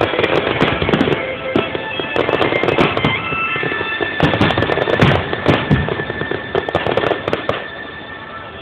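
Aerial fireworks shells bursting in quick succession, with crackling, over music. The bangs thin out and the level drops near the end.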